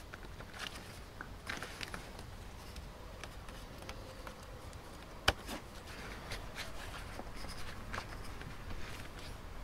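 Hands handling the rubber air intake hose and its hose clamp in a Toyota Yaris engine bay: light scattered rubbing and clicking, with one sharp click about five seconds in.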